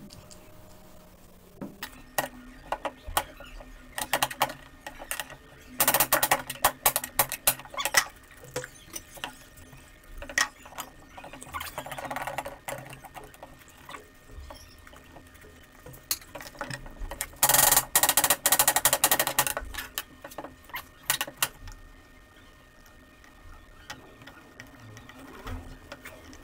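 Vegetables being sliced on a plastic cutting board: two long runs of fast, rapid cutting strokes, with scattered single taps and knocks between them.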